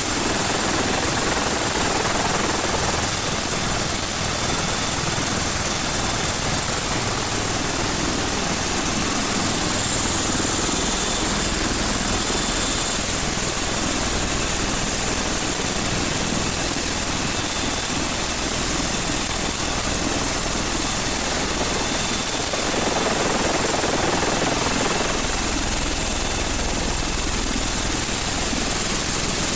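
HAL Dhruv twin-turboshaft helicopter running on the ground, a steady high turbine whine over dense rotor and engine noise.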